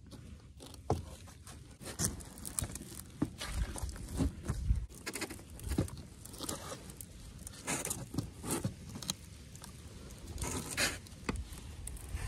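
Concrete cinder blocks being set down and shifted into place on a wooden roof deck: irregular knocks and scrapes.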